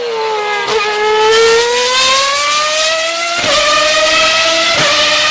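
Formula 1 car engine at high revs, accelerating through the gears: the pitch dips briefly, then climbs steadily and drops sharply with an upshift about three and a half seconds in and again near the end.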